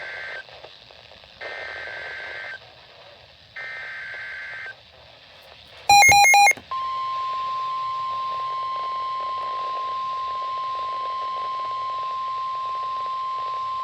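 NOAA Weather Radio Emergency Alert System activation. Three SAME header data bursts, warbling digital tones about a second each and a second apart, are followed about six seconds in by a short, loud pulsing beep. Then comes the steady 1050 Hz weather-radio warning alarm tone, signalling that a severe thunderstorm warning is being issued.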